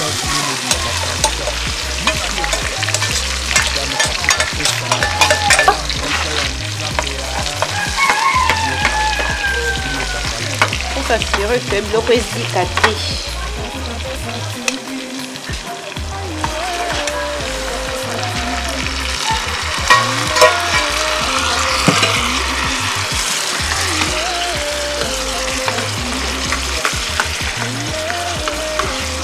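Vegetables and tomatoes frying in oil in an aluminium pan over a charcoal fire, sizzling steadily while a metal ladle stirs them with small clicks and scrapes against the pan.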